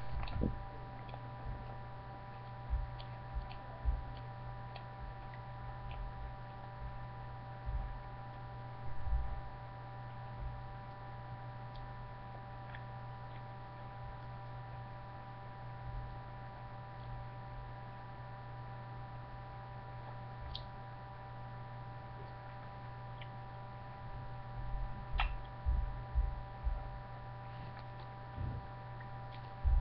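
Steady electrical hum with a faint high whine, the background noise of a webcam's built-in microphone, broken by a few soft low thumps that come more often near the end.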